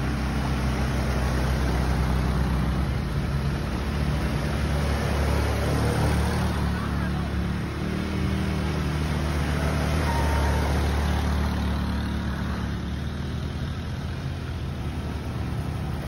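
Several ATV (quad bike) engines running as the quads drive through a shallow stream, with the wheels splashing through the water. The engine sound swells twice as machines come close.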